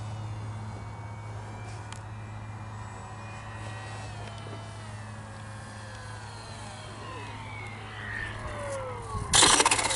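Small RC parkjet's motor and propeller whining faintly over a steady low hum, the pitch falling over the last few seconds as it comes in to land. Near the end a sudden loud scraping rush as the foam airframe touches down and skids on the paved runway.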